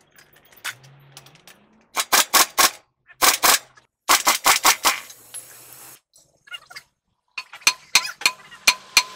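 Pneumatic impact wrench hammering on a truck's wheel-hub axle nut in three short bursts of rapid metal blows. Near the end come a run of separate sharp metal strikes at the hub, about three a second.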